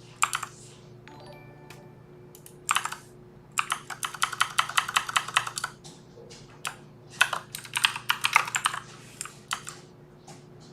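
Typing on a Filco Majestouch mechanical keyboard: bursts of fast key clicks, the longest and densest run in the middle, with a pause before a second run.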